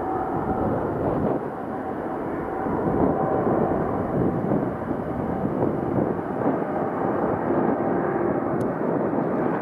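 Boeing 787-9's GEnx turbofan engines running at high power as the airliner rolls along the runway: a steady jet roar with a faint whine.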